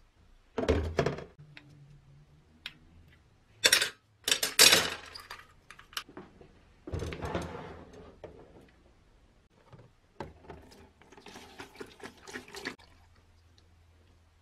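Rusty sheet-metal parts of a bench grinder set down with knocks and clatter in a plastic tub, and rust-remover liquid poured in over them. The sound comes in several separate bursts.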